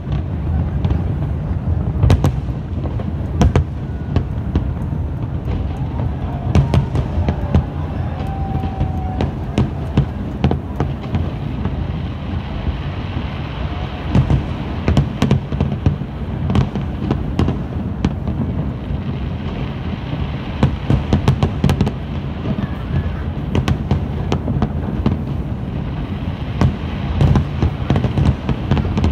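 Large aerial fireworks display: a continuous rumble of overlapping booms, with many sharp bangs and crackles throughout.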